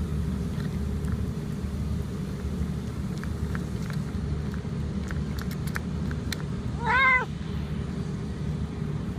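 A domestic cat gives one short, high, kitten-like mew about seven seconds in. Before it come a few faint clicks, and a steady low hum runs underneath.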